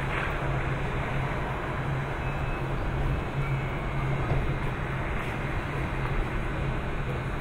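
Electric commuter train standing at the platform with its doors open, its onboard equipment giving a steady low hum over a constant rushing noise.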